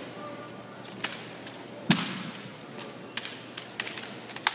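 Drill rifles being spun, caught and slapped in an armed exhibition drill: a series of sharp wooden clacks and knocks, about six, the loudest about two seconds in.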